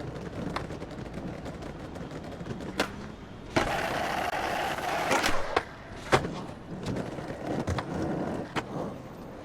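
Skateboard wheels rolling with scattered clacks, then a scraping grind of about two seconds starting about three and a half seconds in, ended by a sharp smack as the board comes down, and rolling again.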